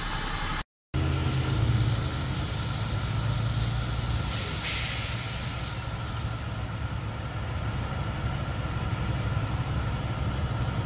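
A vehicle engine idling with a steady low hum. A short hiss comes about four and a half seconds in.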